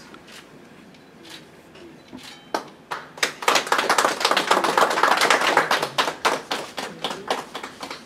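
A small group of people applauding by hand. A few scattered claps come about two and a half seconds in, swelling into dense clapping and then thinning out near the end.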